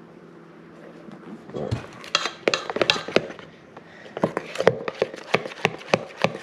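A spoon clacking and scraping against a mixing bowl in quick, uneven strokes as slime mixture of glue and activator is stirred, starting about two seconds in.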